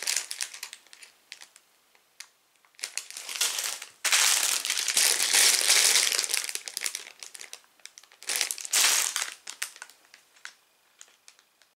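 Clear plastic LEGO parts bag crinkling as it is handled and turned, in several bursts with short gaps between, loudest from about four to seven and a half seconds in, ending in a few small crackles.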